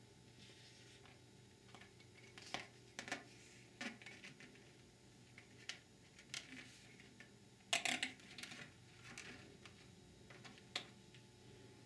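Faint, scattered clicks, taps and light rustles as a paper separator-plate gasket is handled and pressed down over guide pins onto a transmission case. The loudest cluster of clicks comes about eight seconds in.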